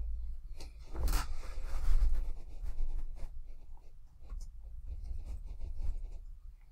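Typing on the Asus ROG Strix Hero Edition laptop keyboard: a run of light, irregular key clicks while a password is entered, with some handling of the laptop.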